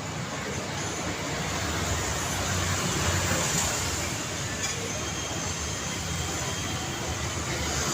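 Road traffic ambience: a steady wash of passing vehicles' engine rumble and tyre noise, swelling a little about three seconds in as a vehicle goes by.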